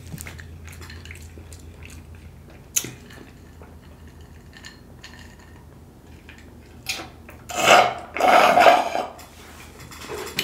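Drink sipped through a straw from a plastic cup of ice: mostly quiet with a single click about three seconds in, then two loud slurps with rattling near the end, lasting about a second and a half.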